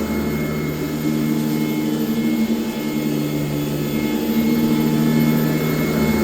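Sanitaire S663 upright vacuum cleaner running steadily while vacuuming, a motor whine over a hum. The tone dips and shifts slightly a few times, around the start, the middle and about four seconds in.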